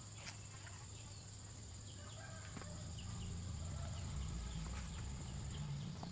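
Chickens clucking softly, with a steady high-pitched tone throughout and a low rumble growing louder from about two seconds in.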